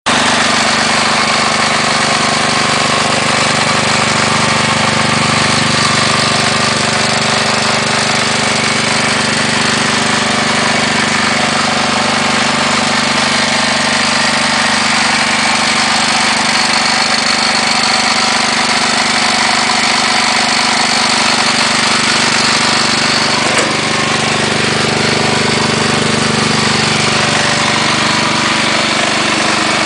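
Case 444 garden tractor engine running steadily at idle with a knock, which the owner takes for piston slap.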